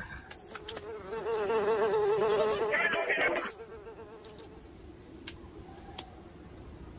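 Cartoon sound effect of a buzzing insect, its drone wavering up and down in pitch. It is loud for a couple of seconds and then drops to a faint buzz.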